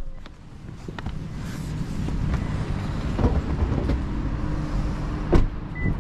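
Car engine idling with a steady low hum, with a few knocks around the open boot and a sharp clack about five seconds in, followed by a short high beep near the end.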